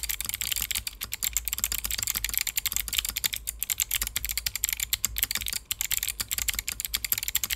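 Fast typing on a mechanical keyboard fitted with Kailh Autumn clicky switches: a dense, unbroken run of crisp, bright clicks, many keystrokes a second. The click bar in these switches clicks on both the press and the return of each key.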